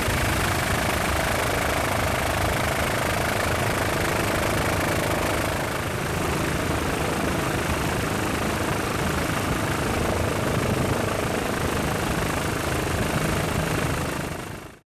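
Steady drone of a helicopter's engine and rotor, heard from aboard, fading out near the end.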